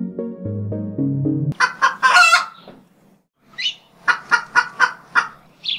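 Electronic synth music ends abruptly about a second and a half in, followed by a chicken sound effect: a quick run of short clucks rising into a longer drawn-out call, then after a brief pause another run of short clucks at about four a second.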